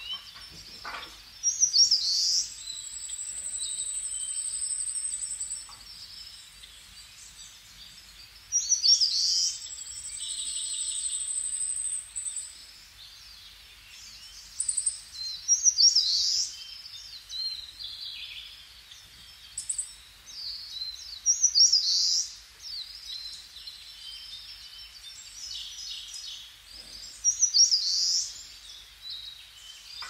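Wild birds singing over the murmur of a stream: quick chirping phrases again and again, and twice a long, high, thin note held for about three seconds.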